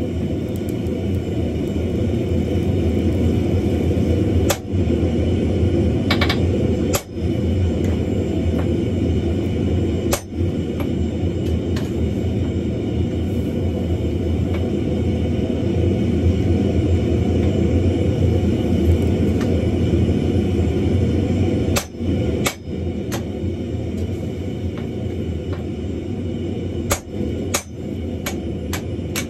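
A handful of widely spaced hammer blows on a handled punch driven into a red-hot wrought iron billet on the anvil, over a steady low rumble.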